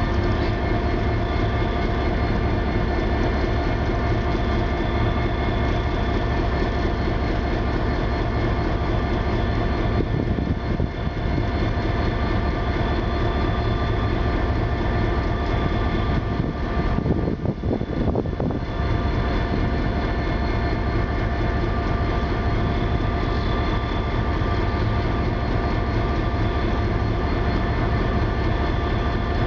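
Diesel engine of a Metra commuter locomotive running steadily after start-up, a low even throb under a constant whine of several steady tones.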